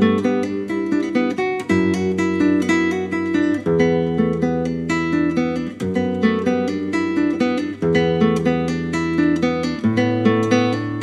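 Solo classical guitar by Kim Sang Gil, its nylon strings fingerpicked: a quick, steady stream of plucked melody notes over low bass notes that change about every two seconds.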